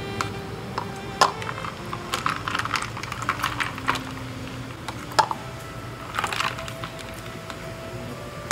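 Metal ladle clinking and scraping in a plastic bowl of ice water as pig trotters are scooped out, with water and ice cubes sloshing; the sharpest clinks come about a second in and about five seconds in. Soft background music with held notes plays underneath.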